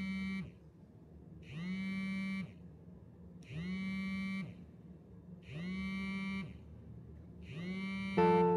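Pantech cell phone vibrating for an incoming call, its buzz rattling against the table. The buzzes last about a second each and come every two seconds, each rising in pitch as it starts and sinking as it stops. Near the end, plucked-guitar music starts suddenly and loudly.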